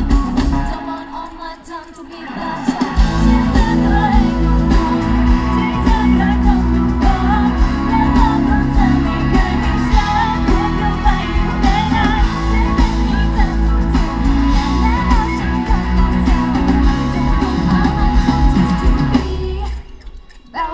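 Loud pop song with sung vocals over a full backing track. The music thins out briefly a second or two in, comes back in full, and stops about a second before the end.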